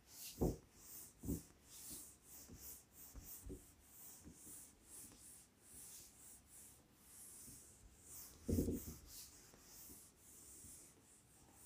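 A whiteboard duster wiping a marker board clean: faint, repeated rubbing swishes, with a few dull thumps, the loudest about eight and a half seconds in.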